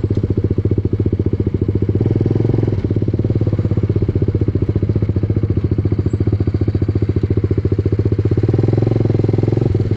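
Sport motorcycle engine running at low revs, with a steady, evenly pulsing exhaust note as the bike rolls slowly along a dirt track.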